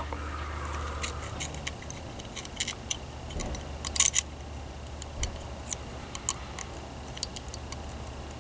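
Light, irregular clicks and taps of a DIP chip's pins against a printed circuit board as the chip is handled and fitted into the board, the loudest about four seconds in, over a steady low hum.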